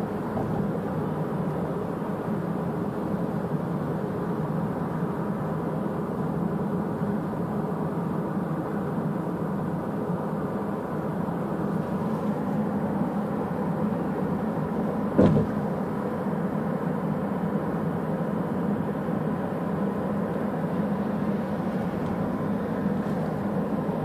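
Steady road noise of a car driving at speed, heard from inside the cabin: engine and tyre rumble at an even level. A single short knock sounds about fifteen seconds in.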